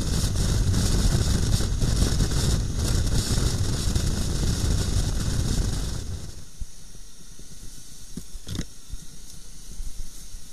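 Motorcycle riding at road speed, its engine and tyre rumble half buried in heavy wind noise on the helmet-mounted microphone. About six seconds in it drops to a quieter, slow run of the engine on a muddy lane, with one short sharp noise a little later.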